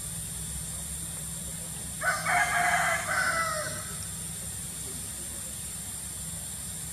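A single loud animal call about two seconds in, lasting under two seconds in two parts with a short break between them, its pitch falling slightly at the end.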